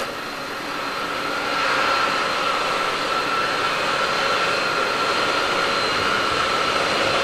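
Boeing 747-400 airliner's jet engines running steadily on the apron, a constant high whine over a rushing noise. It grows louder about a second and a half in.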